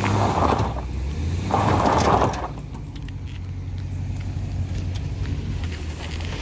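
A vehicle engine running steadily with a low hum, with two louder rushing surges in the first two and a half seconds.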